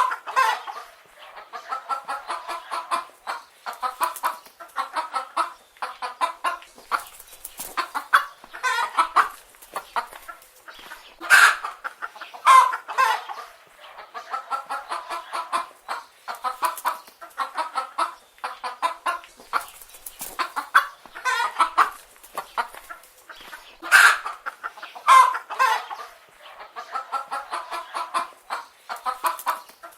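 Domestic chicken hens clucking almost continuously, a string of short repeated clucks with a few louder, sharper squawks standing out near the start, about twelve seconds in, and about twenty-four seconds in.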